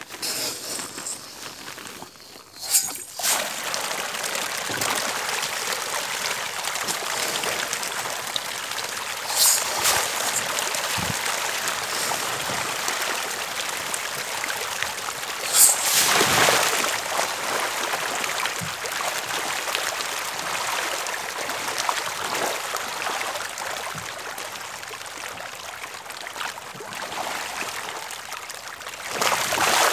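Continuous splashing and trickling of pond water churned by a dense shoal of red tilapia crowding at the surface, with a few sharper, louder splashes among it.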